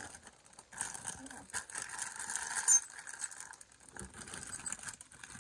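Small metal brake hardware parts clinking and rattling together as they are handled and picked out of a drum brake parts kit, with one sharp metallic clink that rings briefly about two and a half seconds in.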